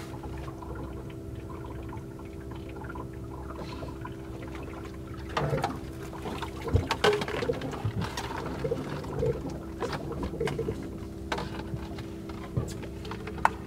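Water splashing and trickling at the boat's side as a hooked fish is reeled in, the splashes starting about five seconds in, over a steady low hum.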